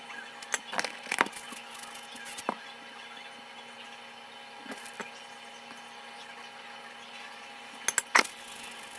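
Scattered sharp clicks and knocks of kitchen utensils and cookware being handled, in a cluster at the start, a few single ones in the middle, and a quick run near the end, over a steady appliance hum.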